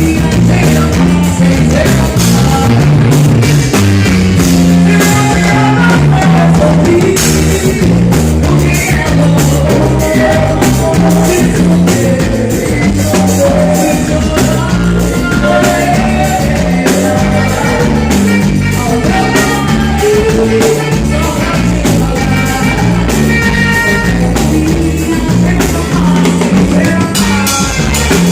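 A band playing loud, steady music: a singer over drum kit, a prominent stepping bass line and guitar.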